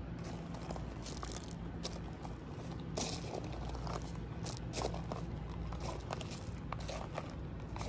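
Footsteps crunching on gravel, irregular short crunches, over a steady low hum.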